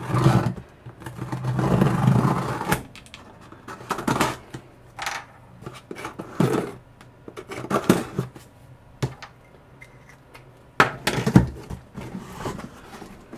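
Utility knife slicing through packing tape along the seams of a cardboard box, in a series of irregular scraping strokes, the longest about a second in. Two louder knocks of cardboard near the end.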